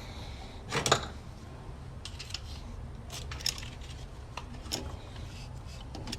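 Light metallic clicks and clinks of a removed carburetor and small loose parts being handled, with a louder pair of knocks about a second in, over a low steady hum.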